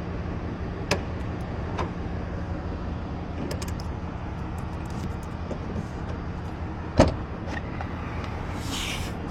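Car lockout opening with locksmith tools: a few small clicks, then one sharp clunk about seven seconds in, over a steady low hum of a vehicle running.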